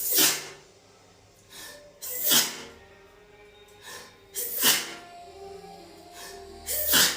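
A woman sneezing in a fit: four loud sneezes a little over two seconds apart, each with a short 'ah' building up just before it.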